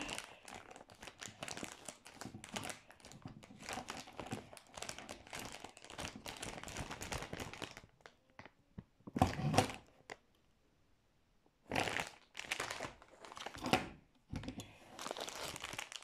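Plastic chips bag crinkling and crumpling as it is handled: dense crackling for the first eight seconds, a short louder rustle just after nine seconds, a brief silent gap, then more bursts of crinkling.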